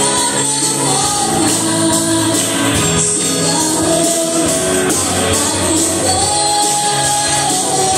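Live worship band in a hall: a woman sings a Cebuano praise song through a microphone over keyboard and band accompaniment with a steady beat.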